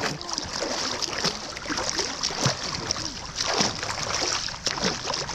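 River water lapping and splashing around inflatable river tubes, with a few short knocks and splashes against the camera.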